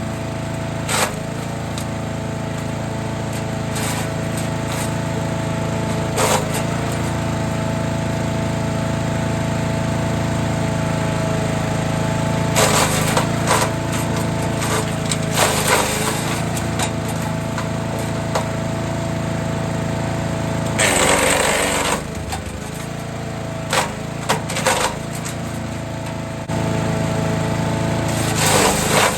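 Forest Master FM8DD wood chipper's engine running steadily while fruit-tree prunings are fed through, with short loud bursts of branches cracking in the cutters every few seconds. The longest burst, about three-quarters of the way through, briefly pulls the engine down under load.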